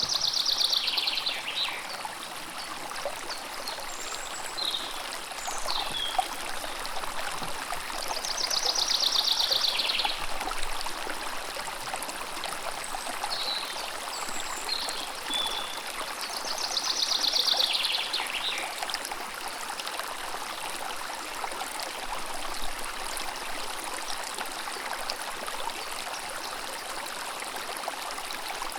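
A stream running steadily with a constant rushing hiss, while a songbird sings a descending trilled phrase about every eight seconds (three times), with a few short chirps in between.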